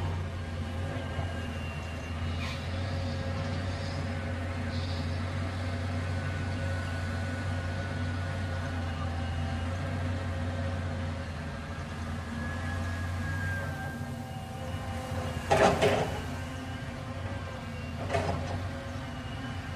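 Diesel engine of a Caterpillar hydraulic excavator running steadily as it works, with a low hum and faint thin tones above it while the boom and arm swing. Two brief louder knocks or clatters, one about 15 seconds in, the loudest sound, and a smaller one near the end.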